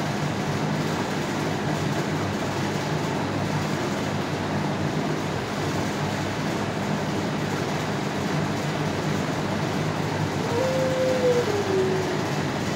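Steady drone and hiss of the kennel's air-handling machinery with a constant low hum. About ten seconds in, a single drawn-out falling tone sounds for about a second.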